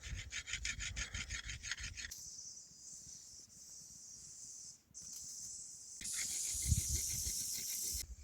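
A darat (heavy billhook) blade being sharpened: quick rubbing strokes of metal, about seven a second, for the first two seconds, then a fainter steady scraping that grows louder again near the end.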